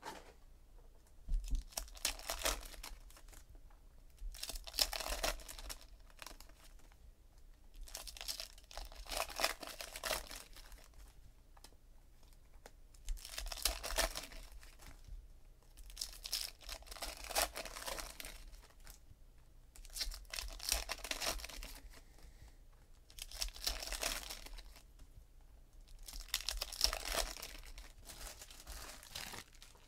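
Foil trading-card packs being torn open and the wrappers crinkled by hand, in about eight bursts roughly three seconds apart.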